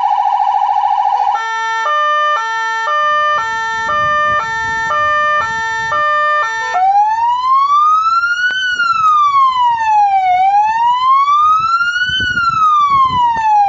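Fire engine's electronic siren switching through its tones: a fast warble for the first second or so, then a repeating stepped multi-note pattern, and from about seven seconds a slow wail rising and falling in pitch.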